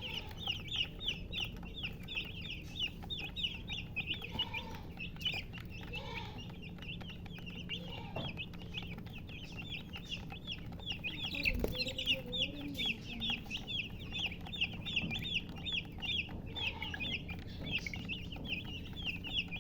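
Chicks peeping without a break, a dense run of short, quick, high peeps, with a hen giving a few lower clucks now and then. One sharp knock comes about halfway through.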